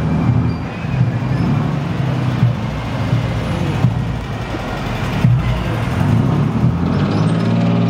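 Engines of old military vehicles, a Land Rover Lightweight among them, running as they drive slowly past. The note is a deep, steady engine hum that rises and falls a little.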